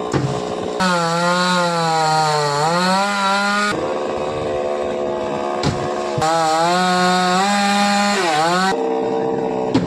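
Two-stroke chainsaw running at high revs while cutting a coconut palm trunk; its engine note sags and recovers as the bar bites in, in two long cuts with rougher stretches between.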